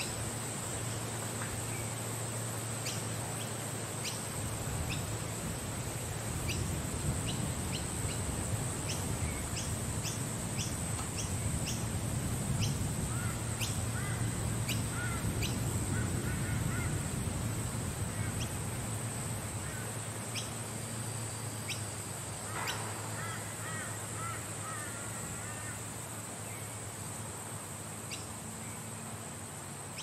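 Small birds chirping and chattering in date palms, with bursts of quick high chirps and short warbling calls. Under them runs a steady low rumble and a thin high hiss.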